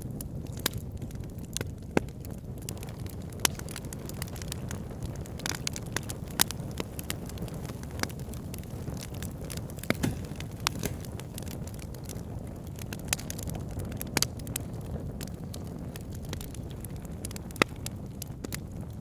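Wood fire burning in a fireplace: a steady low rumble of flames with sharp, irregular crackles and pops, a few of them loud.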